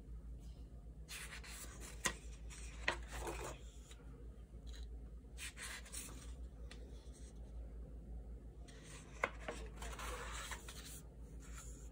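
Sketchbook paper pages being turned and rustled by hand, in several separate spells of rustling with a few sharp paper snaps.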